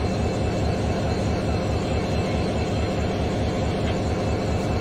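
Steady low rumble of a train locomotive, heard from inside its cab while the train runs.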